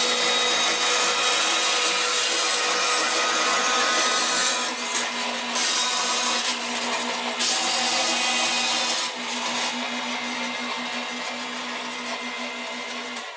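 Metal-cutting bandsaw running with its blade cutting a thin metal sheet fed by hand: a steady motor hum under a loud hiss of cutting that grows brighter for a few seconds midway, then stops suddenly near the end.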